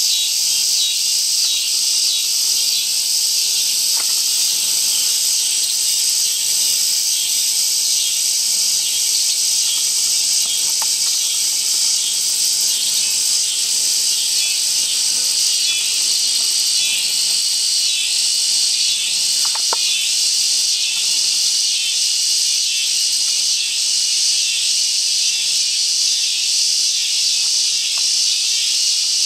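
Dense, steady high-pitched chorus of insects such as crickets, a continuous shrill trilling that does not let up.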